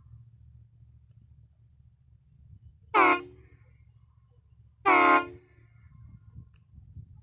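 Half-scale model of a Nathan K5HL five-chime train air horn, sounding two short blasts about two seconds apart.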